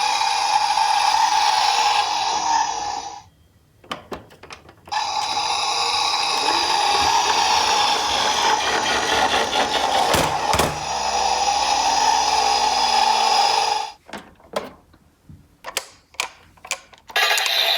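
Miniature toy cars running along a plastic track or slope: a steady whirring rattle. It stops twice for a second or few of light plastic clicks and clacks, and there are a few knocks about ten seconds in.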